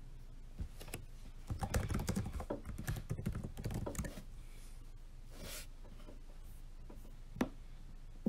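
Typing on a laptop keyboard: a quick run of key clicks lasting about two and a half seconds, then a single sharp click near the end.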